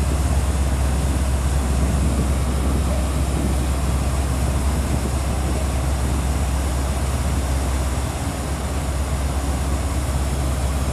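Steady low drone of a high-speed catamaran ferry's diesel engines running, with waterjets churning water at the stern. A constant rush of noise sits over it, and it eases slightly about eight seconds in.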